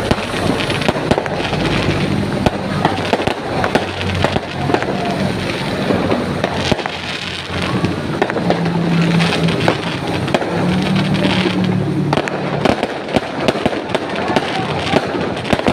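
Fireworks bursting and crackling continuously, with many sharp bangs and pops in quick, irregular succession.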